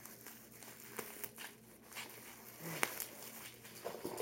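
Clear plastic packing material crinkling and rustling as it is handled, with scattered sharp crackles; the sharpest snap comes a little before three seconds in.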